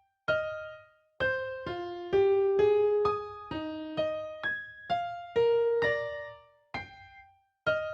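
Music: a slow melody of single piano-like keyboard notes, each struck and left to ring away, with short silent gaps between some of them.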